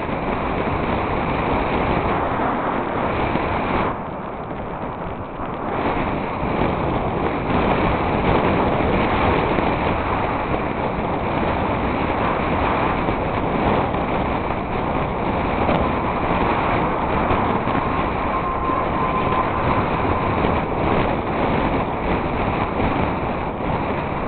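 Wind rushing over the microphone of a handlebar camera as a mountain bike rolls along paved streets, mixed with tyre noise. It drops for about two seconds a few seconds in, then comes back.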